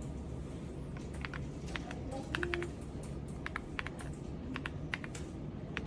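Irregular keystrokes on a mechanical keyboard, sharp clicks coming singly and in quick runs from about a second in, over a low steady hum.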